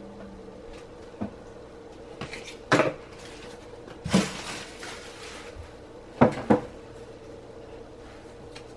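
Cardboard box and packaging being handled and set aside on a table: scattered light knocks and taps, a short rustle about four seconds in, and two sharp knocks close together about six seconds in.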